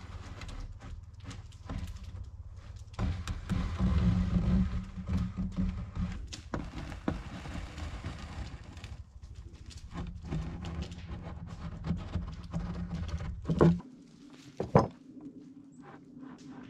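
Scattered wooden knocks and scrapes as a cedar shelf board is scribed against a post with a stick and pencil, over a low rumble. The rumble cuts off about 14 seconds in, and a single sharp knock follows.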